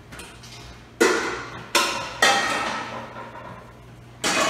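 Large metal cooking pots clanging as they are set down on a gas range, four ringing clangs that each die away slowly: the first about a second in, two more close after it, and a last one near the end.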